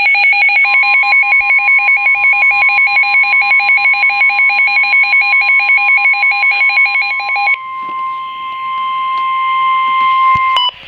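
Weather alert radio sounding its alarm: a rapid warbling beep over a steady high tone, the 1050 Hz NOAA Weather Radio warning tone that signals a warning message is coming. The warbling stops about seven and a half seconds in, the steady tone carries on and cuts off near the end, and a few short beeps follow.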